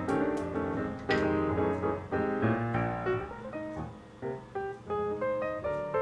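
Background piano music, a quick run of single notes and chords.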